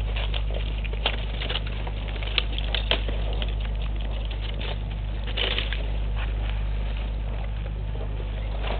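Nyala tearing and chewing grass close to the microphone: irregular crisp snaps and crackles, loudest about two and a half to three seconds in and again about five and a half seconds in, over a steady low hum.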